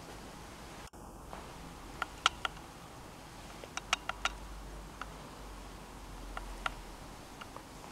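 Quiet room tone with scattered short, sharp, high clicks or squeaks, about a dozen in all, the loudest about two seconds in and a cluster of four near the middle.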